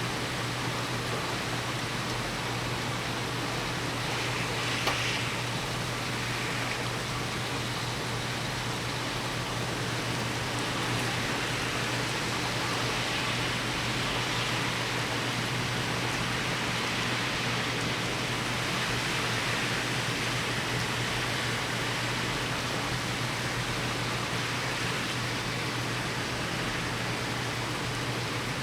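Heavy thunderstorm rain falling, a steady unbroken hiss, with one faint tick about five seconds in.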